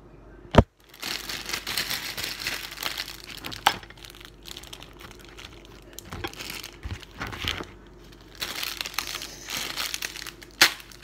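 Plastic wrapper of a Maruchan instant ramen packet crinkling as it is handled, louder at the start and again near the end. Two sharp knocks, about half a second in and near the end, are the loudest sounds.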